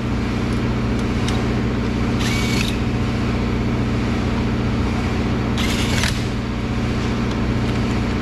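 A steady, idling engine-like hum throughout, with two brief hissing noises about two and six seconds in.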